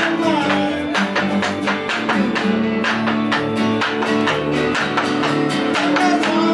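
Live rock band with electric guitar, electric bass and strummed acoustic guitar playing together in a steady rhythm, with a man singing near the end.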